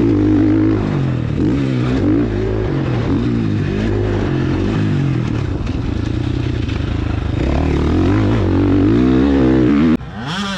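KTM 450 SX-F single-cylinder four-stroke motocross bike ridden around a dirt track, heard from on board, its engine pitch rising and falling again and again with throttle and gear changes. The engine sound cuts off abruptly near the end.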